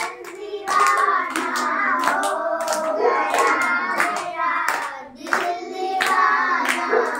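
A group of children singing a chanting clapping-game song while clapping their hands in time, a steady beat of about two to three claps a second, with a short break about five seconds in.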